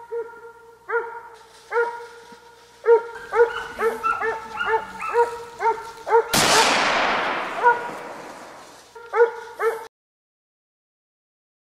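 Hunting dogs barking in a chase after a wild boar, several dogs overlapping in quick repeated barks. About six seconds in comes one loud shot whose echo rolls away over a few seconds while the barking goes on, then everything cuts off suddenly near the end.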